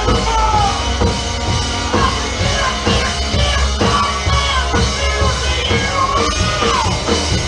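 Rock band playing live, loud and steady, with drums and bass under a melodic line that bends up and down in pitch.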